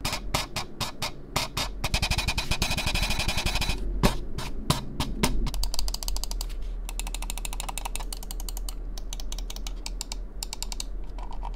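Ajazz AJ159 APEX wireless gaming mouse rattling and clicking as it is moved and shaken, with dense rapid clatter for the first few seconds, then lighter. The rattle is a loose internal part, a build fault that the reviewer finds on other units of the same mouse too.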